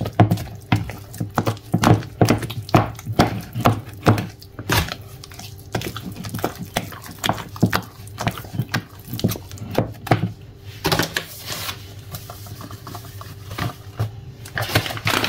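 Wooden spoon beating a wet flour batter for sabaayad flatbread in a plastic bowl, with quick knocks and slaps about twice a second that thin out after about ten seconds. Near the end, a short rustle as dry flour is poured in.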